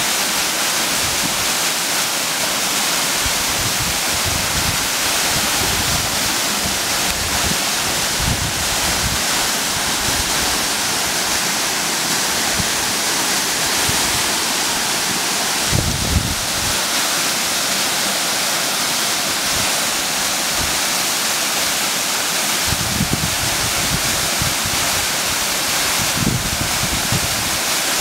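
Waterfall rushing steadily, with a few brief low thumps breaking through it, the strongest about sixteen seconds in.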